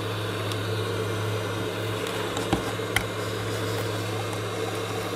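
Hot air gun blowing steadily against a mouse's label to soften its adhesive: an even whir of air with a low hum. A few faint clicks come through about midway.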